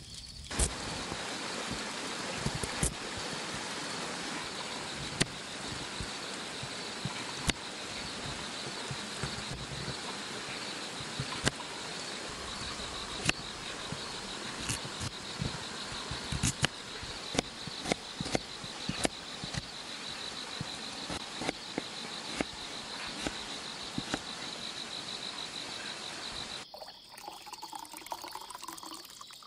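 A mountain stream flowing with a steady rush, with insects trilling on one steady high note and scattered sharp clicks. About 27 seconds in it cuts to a quieter scene of insects chirping.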